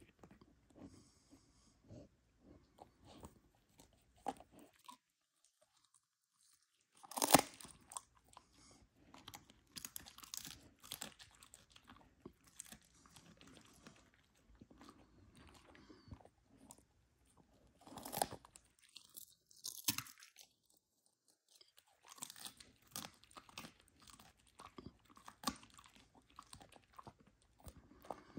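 A husky chewing a dried cod skin treat: irregular bouts of crisp crunches, the loudest about a third of the way in, broken by two short quiet pauses.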